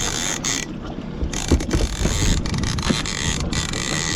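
Fishing reel clicking and whirring in stop-start spells while a fish is fought and reeled in.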